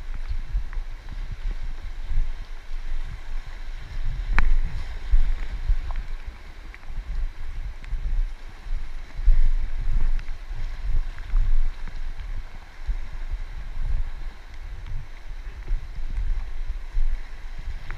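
Wind buffeting the camera microphone in uneven low gusts over the steady rush of river water, with one sharp click about four seconds in.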